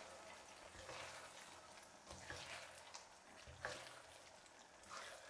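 Faint wet squelching of a silicone spatula stirring fried cauliflower through thick, sticky Manchurian sauce in a nonstick wok, four soft strokes about a second apart.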